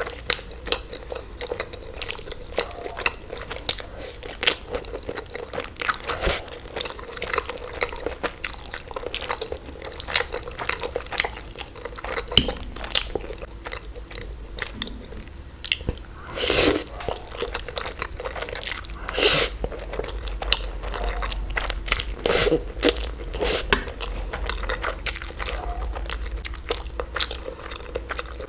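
Close-miked eating: irregular chewing and biting with many sharp wet clicks and crunches, with a few louder bites along the way.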